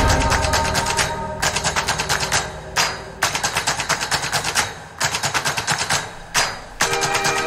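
Background music: fast, evenly repeated drum hits, about eight a second, broken by short pauses roughly every second and a half.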